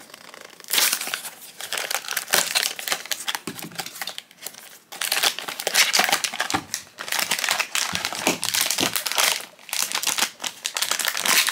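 Foil blind-box bag crinkling as it is pulled from its cardboard box and worked open by hand, with a brief lull about four seconds in.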